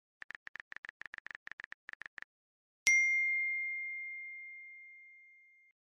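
Smartphone keyboard clicks, a quick run of about sixteen soft taps as a search is typed, then a single bright notification ding for an incoming text message that rings out and fades over about three seconds.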